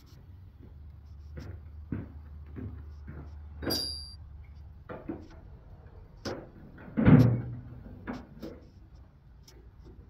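Hand tools being handled in a garage: scattered clicks and knocks, a short metallic clink that rings about four seconds in, and one loud clunk about seven seconds in.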